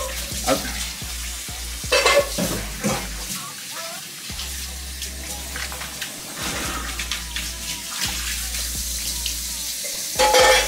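Kitchen work at a counter: scattered clicks and knocks of utensils and containers being handled, over a steady hiss, with a louder clatter about two seconds in and again at the end.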